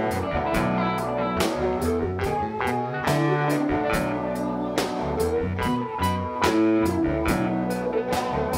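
Live rock band playing with electric guitars, bass, keyboards and a drum kit keeping a steady beat.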